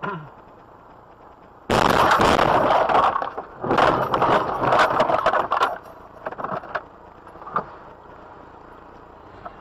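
Two long, loud, distorted car-horn blasts, crackling from overload, starting abruptly about two seconds in with a short break between them, then a few short pops.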